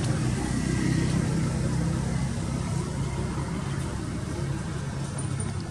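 Steady low rumble of an idling engine, fading slightly.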